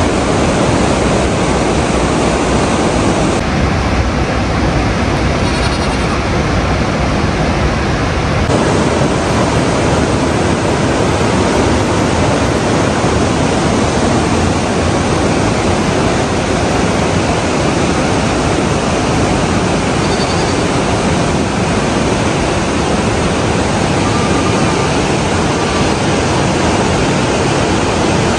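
Fast mountain river rushing over rocks: a loud, steady wash of water noise with no let-up.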